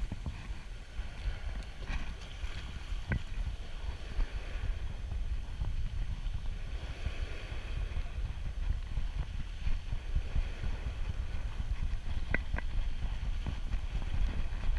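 Wind buffeting the microphone as a low, uneven rumble over the faint wash of small waves, with a few faint ticks about three seconds in and again near the end.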